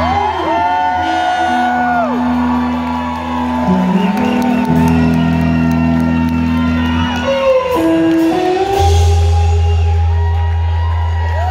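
Live rock band playing long held chords, with an acoustic guitar strummed over a sustained low bass that changes note twice. Audience whoops and shouts rise over the music.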